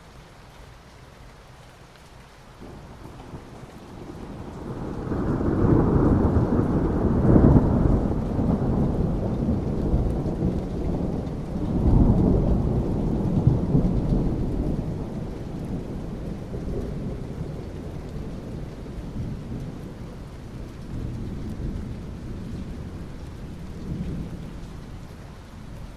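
Steady rain falling on asphalt, with a long roll of thunder that builds from about three seconds in, peaks twice, and slowly fades away.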